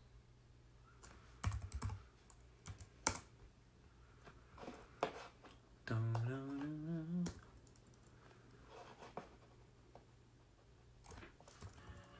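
Scattered light clicks and taps, typing-like, at an uneven pace. About six seconds in, a drawn-out vocal sound slides up in pitch for just over a second.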